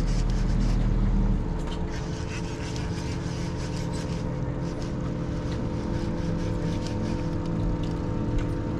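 Boat motor running steadily with a constant hum; its deeper rumble drops away about a second and a half in. Faint irregular ticks sound over it.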